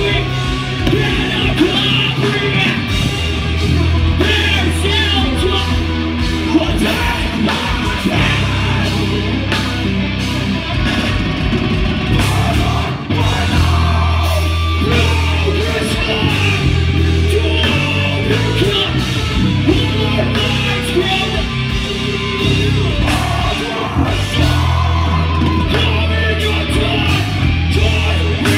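Live heavy metal band playing loud and full: distorted electric guitars, bass guitar and drum kit, with a vocalist shouting and singing over them.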